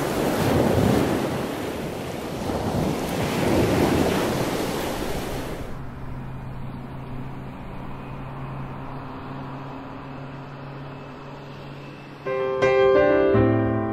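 Rushing noise like ocean surf swells twice and then cuts off abruptly about six seconds in. A low, quiet held tone follows, and near the end a piano begins playing single notes.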